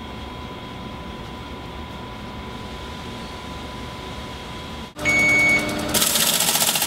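A steady background hum of running equipment. About five seconds in, a loud, high, steady modem tone sounds for about half a second. Near the end, a Teletype Model 37 ASR starts printing with a fast, even mechanical rattle.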